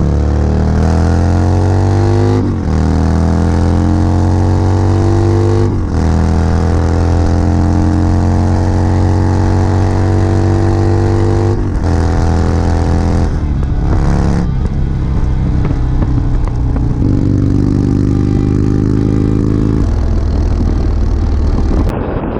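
Motorcycle engine heard from the rider's helmet while accelerating through the gears. Its pitch climbs steadily and drops sharply at each upshift, several times, then holds steadier near the end.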